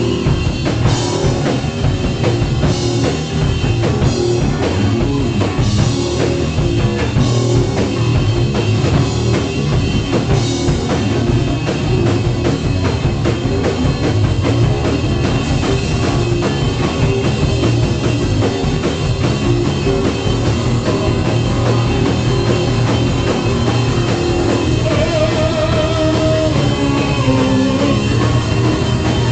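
A rock band playing loudly and live: electric bass and drum kit together. A melodic line stands out near the end.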